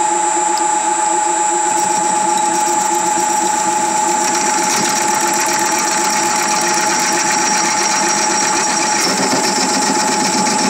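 Metal lathe running steadily with a whine while a cutting tool turns away a copper sleeve pressed over a steel core.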